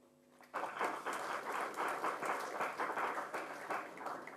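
Audience applauding, a dense patter of many hands clapping that starts about half a second in and dies away near the end.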